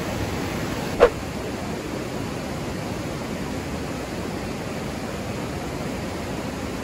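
Steady rush of river rapids, with one short sharp sound about a second in.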